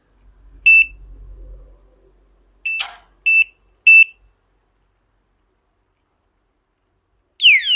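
Anti-theft alarm padlock giving four short high beeps, with a click among them. Near the end its siren goes off: a loud wail of quickly repeating falling sweeps, about five a second, set off by the lock being moved.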